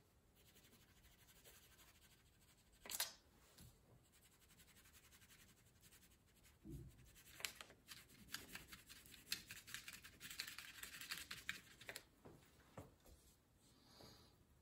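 Faint scratching of a wax crayon colouring over paper, in quick back-and-forth strokes that get busier from about seven to twelve seconds in. A single sharp tap about three seconds in is the loudest sound.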